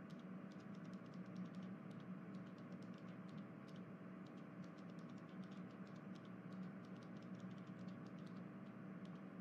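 Faint room tone: a steady low hum with light, irregular ticking clicks, several a second.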